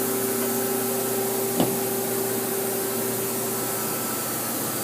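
Steady hum of a powered-up Haas SL-20T CNC lathe standing at idle, with one short click about a second and a half in.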